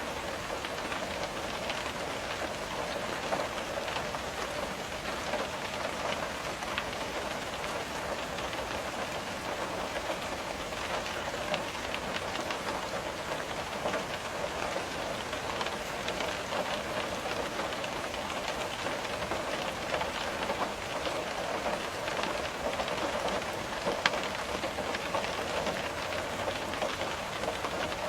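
Steady rain, with many small drops tapping on a window pane, and one louder tap near the end.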